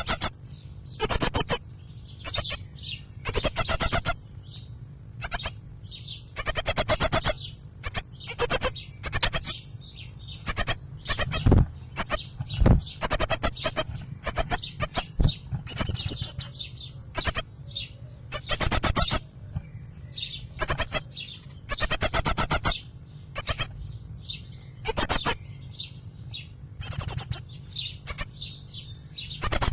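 Great tit nestlings begging inside the nest box: bursts of high, rapid, harsh chirping, each under a second long, repeated every second or two while a parent great tit is at the entrance hole.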